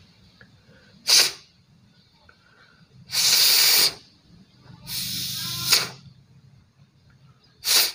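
Someone blowing hard by mouth through the air-adjustment passage of a small two-stroke sprayer engine's carburetor to clear dirt from it: four breathy puffs, a short one, two long ones of about a second each, and a short one near the end.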